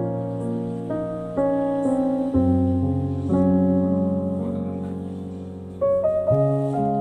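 Slow piano music: sustained chords, a new chord struck every second or so, with a cluster of quick notes about six seconds in.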